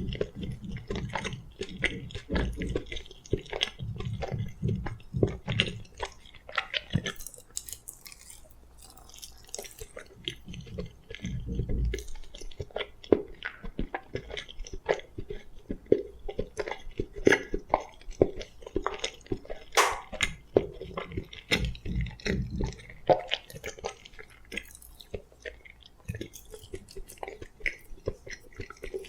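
Close-miked chewing of food, with many small wet mouth clicks and squishes, coming in stretches of heavier chewing.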